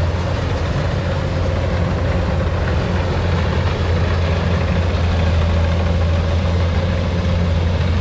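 Rice combine harvester's diesel engine running steadily under load as the machine cuts standing rice, with a strong low hum.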